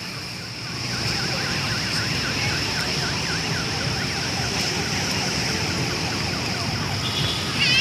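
Street traffic with a distant siren yelping, its pitch sweeping rapidly up and down for a few seconds, over a steady high-pitched hiss. A brief louder warble comes near the end.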